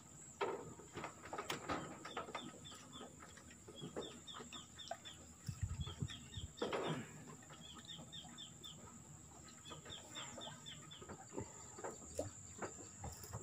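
Faint outdoor ambience: a bird calling in short runs of four or five quick chirps, repeated every second or two, over a steady high insect whine, with scattered clicks and knocks.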